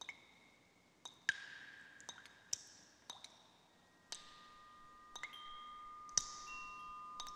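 Chime-like tones struck one after another at uneven intervals, about a dozen strikes, each ringing on at its own pitch; the later notes are held for several seconds.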